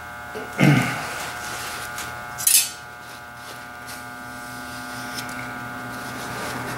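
A steady electrical hum in a small shop, with a brief dull knock about half a second in and a short crisp rustle of a paper shop towel about two and a half seconds in as a metal part is wiped.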